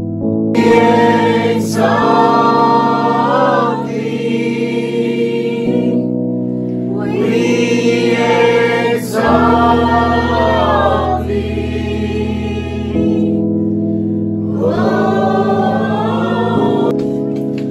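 Slow worship music: sustained chords under singing in three long phrases.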